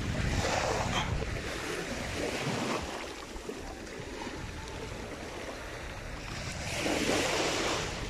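Small waves washing up on a sandy beach, with wind rumbling on the microphone; the wash swells louder about half a second in and again near the end.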